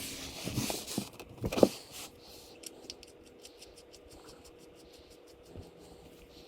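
Hand tools and parts being handled: a few scrapes and clinks in the first two seconds, then a quick run of light ticks, about ten a second, for a second and a half.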